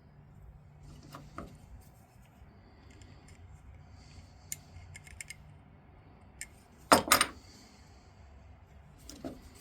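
Small metal clicks and clinks of a steel hand vise's parts being handled and fitted together, with a louder double clack about seven seconds in.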